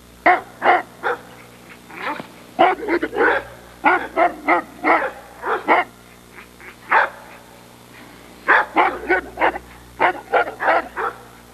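Neapolitan Mastiff barking over and over in quick runs of short barks, with a pause of about two seconds just past the middle.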